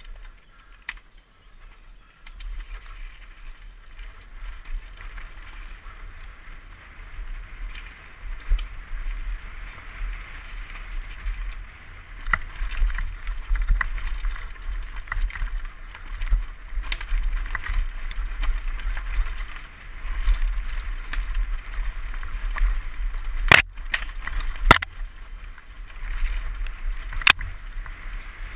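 Wind rumbling on a helmet camera's microphone over the rattle and tyre noise of a mountain bike descending a dirt trail. It grows louder as the bike picks up speed, with three sharp knocks from the bike over bumps in the last five seconds.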